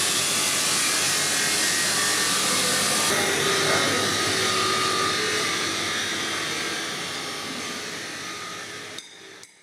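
Steady whirring of a small motor with a hiss. It fades over the last few seconds and cuts off near the end.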